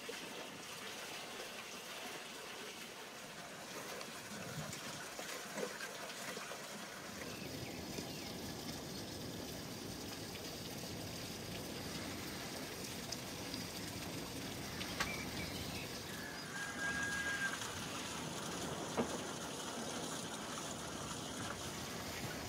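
Faint outdoor ambience: a steady hiss of trickling water, fuller from about a quarter of the way in. There are a few soft clicks and a short bird call a little past the middle.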